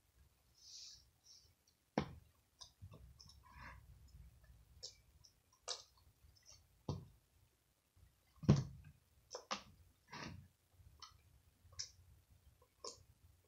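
Slime being kneaded and mixed by hand, giving irregular clicks, with two louder ones about two seconds in and past the middle.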